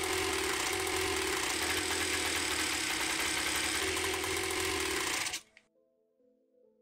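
Homemade two-stroke engine, converted from a four-stroke, running with a dense, rapid firing sound and cutting off suddenly about five seconds in; soft background music follows.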